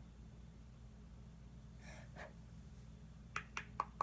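A soft breath, then four quick sharp taps near the end: a makeup brush being tapped against its container to knock off excess eyeshadow powder.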